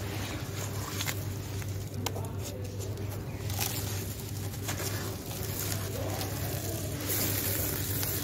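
Hands rubbing and crumbling dry sand-cement in a plastic tub: gritty crunching and the hiss of loose powder, with scattered small cracks. Louder and brighter near the end as a chunk is crushed into dust.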